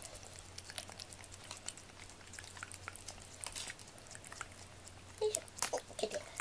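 Cat eating wet food from a small ceramic dish: quick, irregular wet licking and chewing clicks.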